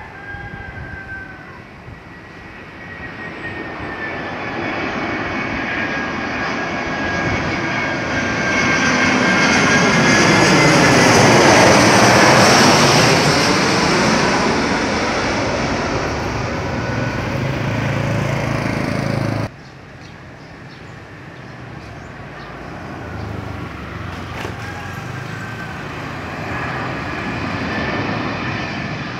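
Twin-engine jet airliner on landing approach passing low overhead: the engine noise and whine build to a loud peak about twelve seconds in, then start to fade. It cuts off suddenly about two-thirds of the way through, and the next landing jet's noise grows louder toward the end.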